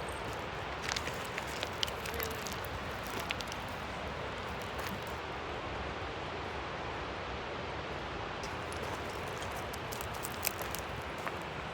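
Steady rushing of a waterfall swollen with spring snowmelt runoff, with a few small sharp clicks over it.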